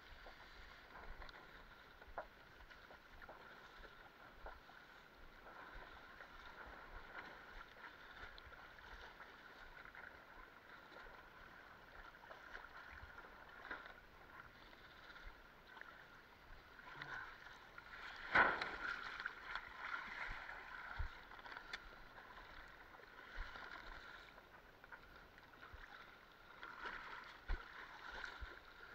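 Water splashing and lapping against a Fanatic Ultra Cat windsurf longboard's hull as it sails, with a louder splash about two-thirds of the way through and another near the end.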